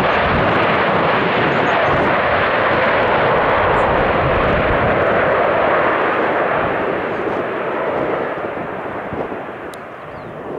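Jet engine noise from the Embraer KC-390's two IAE V2500 turbofans as the transport rolls along the runway: a loud, steady rush that fades from about seven seconds in.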